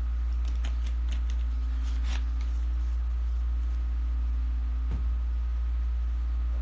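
A run of light clicks and taps about half a second to two and a half seconds in, and one dull bump near five seconds, from hands handling things at a desk, over a steady low hum.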